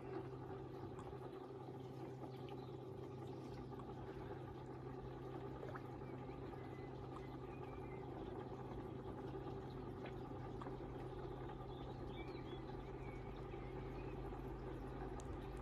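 Koi pond pump and Oase Screenmatic filter running: a steady low hum with water trickling back into the pond. Faint bird chirps now and then through the middle.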